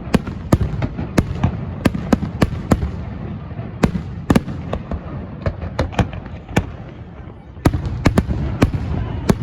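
Fireworks display: a rapid, irregular run of sharp bangs and crackles over a continuous low rumble. It eases off briefly just past halfway, then picks up again with a dense flurry of bangs.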